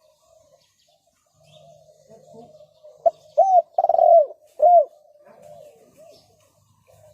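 Spotted dove cooing: after a quiet start, a loud phrase of four arching coos comes about three seconds in, followed by a few fainter coos.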